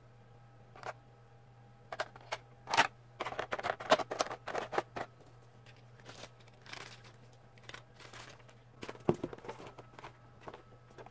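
Plastic packaging crinkling and rustling as a toy is handled, mixed with scattered sharp clicks. The busiest stretch comes about two to five seconds in, over a faint steady low hum.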